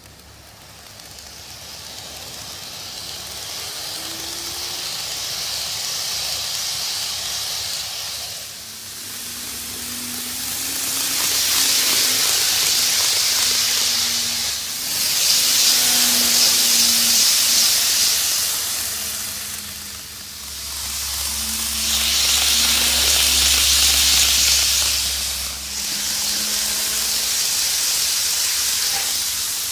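N gauge model train of a Tokyu 5050 series 4000 running on model track: a steady hiss of small wheels on the rails with a faint motor hum, swelling and fading several times as the train passes close by on its loop.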